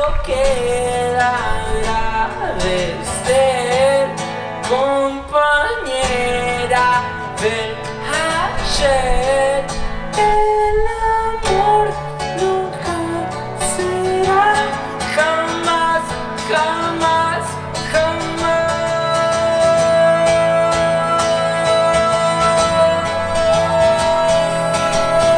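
A man's voice singing over a live acoustic guitar, with long, bending sung notes and no clear words; a long note is held in the second half.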